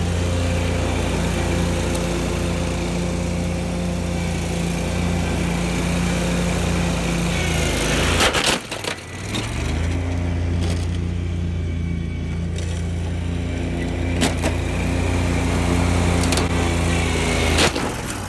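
Wright stand-on zero-turn mower's engine running at high revs, coming up to speed at the start. Around halfway it drops away for a moment among a few sharp knocks, then comes back up and runs steadily until it falls off near the end.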